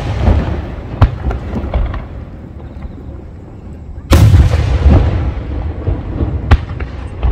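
Aerial firework shells bursting very close by: a heavy boom about four seconds in, sharper single bangs about a second in and near the end, and long rumbling echoes between them.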